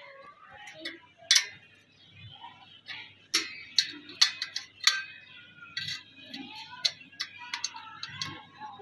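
Irregular sharp metallic clicks and clinks of galvanised steel angle brackets, nut and bolt being handled and tightened while a solar panel stand is assembled, a handful of them loud.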